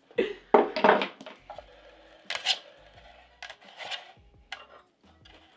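Knocks and scrapes of MDF wooden tray parts being handled as a three-tier tray is put together, loudest in the first second, with another sharp knock about two and a half seconds in.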